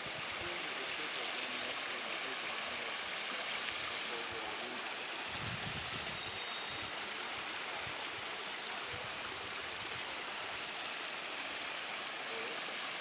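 Steady, even rush of hot spring water spilling over rocks into a pool, with a short low swell about five seconds in.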